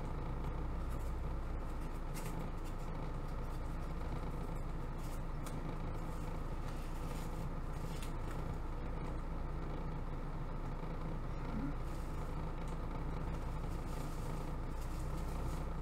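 Steady low background hum with faint rustling and small clicks as a paper-wrapped test tube is handled and unwrapped.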